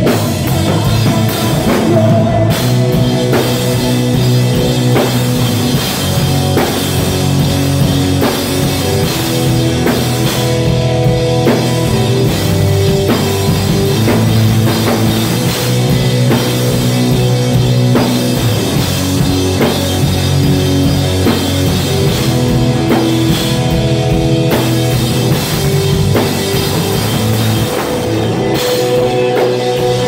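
Live rock band playing an instrumental passage with no vocals: electric guitars over a full drum kit.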